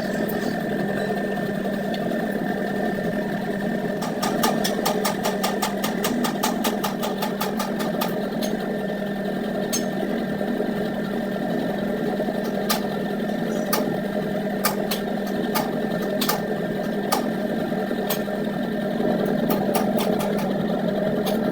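A small machine motor running steadily, with runs of rapid sharp clicks over the hum, fastest about four to eight seconds in.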